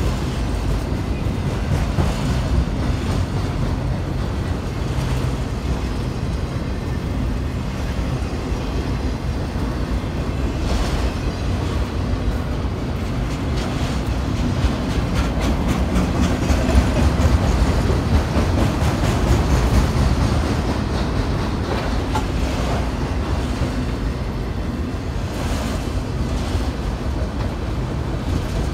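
Freight train of autorack cars rolling past: a steady rumble and rattle of steel wheels on rail, with a few sharp clicks here and there.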